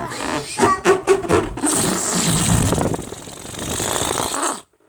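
An inflated rubber balloon let go, deflating as air rushes out through its neck with a buzzing, engine-like rasp that cuts off suddenly near the end as it empties.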